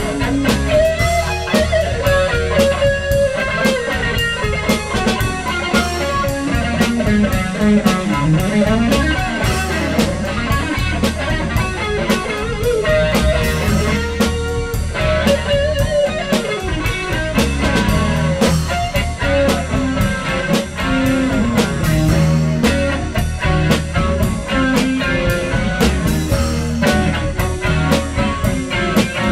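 Live blues-rock band playing an instrumental passage: electric guitar over a steady drum kit beat, with no singing.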